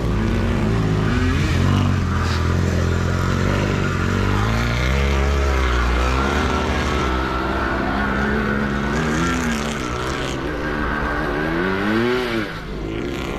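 Racing sidecar motocross motorcycle engines revving hard, several at once, their pitch repeatedly climbing and dropping as the outfits accelerate and shift gear, with one sharp rev up and back down near the end.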